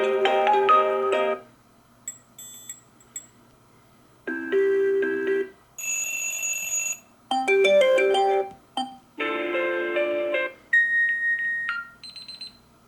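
Huawei Mate 10 Pro default alarm tones played one after another: about eight short melodic snippets, each lasting a second or so, with brief pauses between them. Two of the snippets are high-pitched chimes.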